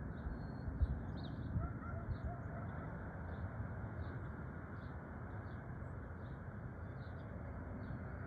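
Outdoor ambience: birds chirping, short high chirps about every half second, over a steady rushing background noise, with a few low bumps on the microphone in the first two seconds.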